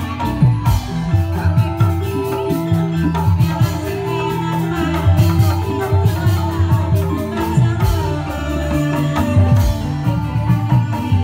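Indramayu reog music played loud through loudspeakers: a steady drum beat under sustained melodic notes, accompanying the masked dancers.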